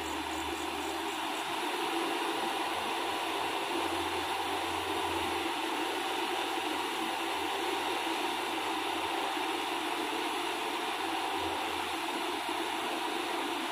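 An engine running steadily at idle, an even mechanical hum that does not change.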